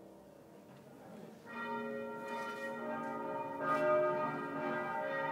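Church bells ringing. They come in about one and a half seconds in and swell with a fresh stroke a couple of seconds later.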